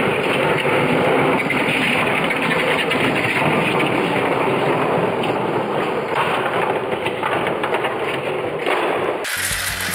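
Electric toy slot cars racing around a plastic track: a loud, dense, steady whirring rattle that cuts off suddenly near the end.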